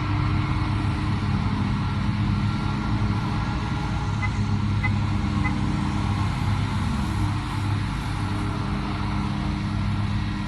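A motor vehicle's engine idling outside, a steady low hum that holds one pitch throughout.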